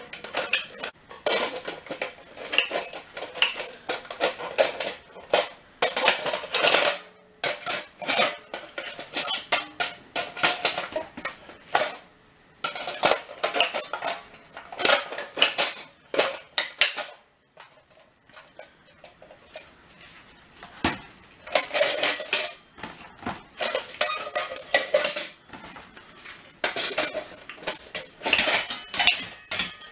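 Tin snips cutting the sheet-metal housing of a recessed light can: irregular sharp metallic snips, crinkling and clinking of the cut metal as the can is handled, with a quieter lull a little past the middle.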